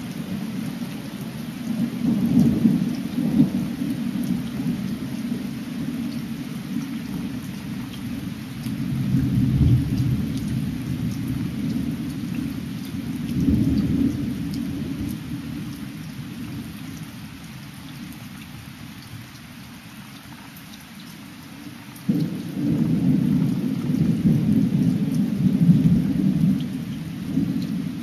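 Thunderstorm: rolling thunder rumbles and swells several times over steady rain, dies down, then a loud rumble breaks in suddenly about three-quarters of the way through and carries on.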